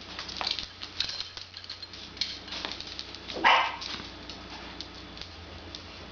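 A dog gives one short bark about three and a half seconds in, over scattered light ticking and pattering.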